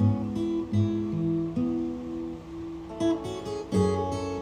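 Acoustic guitar played slowly, with notes and chords plucked about once a second and left to ring.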